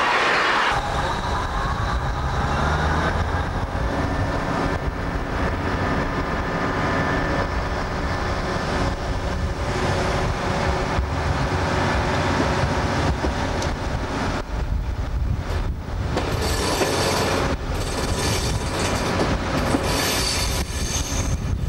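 DE II diesel multiple unit running at low speed, its engine and running gear rumbling steadily, with a whine that rises in pitch over the first few seconds and then holds. In the second half the wheels squeal and click as the train rolls through the junction.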